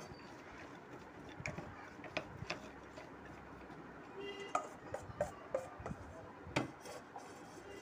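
A spoon clicking and scraping against a glass bowl as roasted peanuts are stirred into melted chocolate: faint, irregular light clicks, one a little louder about two-thirds of the way through.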